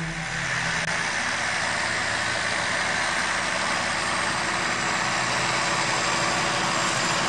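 John Deere 7530 tractor's six-cylinder diesel engine running steadily under load while pulling a plough, slowly growing louder as the tractor approaches.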